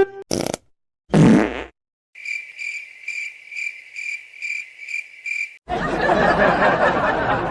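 A brief whoosh, then a fart sound effect about a second in, followed by cricket chirping at about two and a half chirps a second, the comic 'awkward silence' gag. Near the end the chirping stops and a dense, steady rush of noise takes over.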